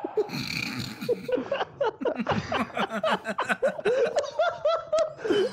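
Several people laughing together in quick, repeated bursts.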